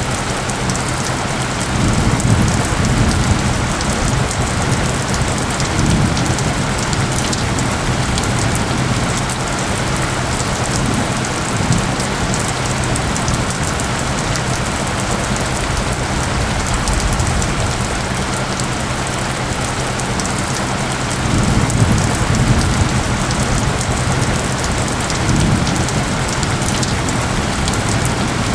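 Steady rain falling, with low rumbles of thunder swelling about two seconds in and again near the end. Under it runs a steady low hum of layered tones.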